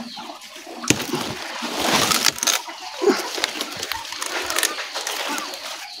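Papaya leaves rustling and their stalks snapping as leaves are pulled off the tree by hand, with a couple of sharp snaps about one and two seconds in.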